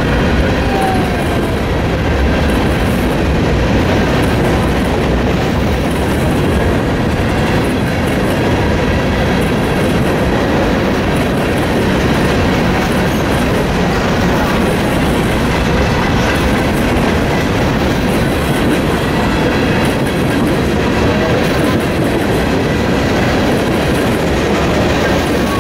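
Freight train cars rolling steadily past, with the rumble of steel wheels on rail and clickety-clack over the rail joints.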